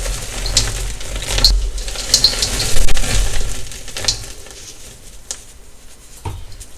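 Dyed gym chalk crushed by hand, crunching and crackling over a low rumble of handling, growing much quieter after about four seconds with only scattered small crunches.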